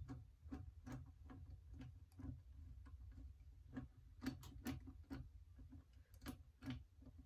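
Hand driver with a ball-head hex extension ratcheting as a screw is run into a rifle's action, giving a faint series of light clicks, about two to three a second, with a few quicker ones in the middle.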